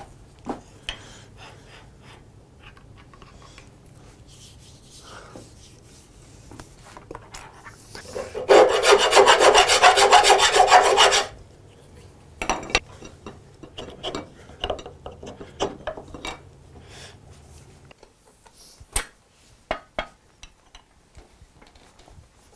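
A burst of rapid scraping strokes for about three seconds near the middle, like a file or brush worked fast over a part. Around it are scattered clicks and knocks of parts being handled, over a low hum that stops near the end.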